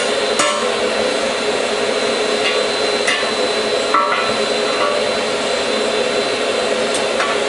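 Hammer blows on a hot steel bar held in a homemade bending jig: about five irregular strikes, one about 4 s in ringing briefly. Underneath runs the steady rush of a forge blower.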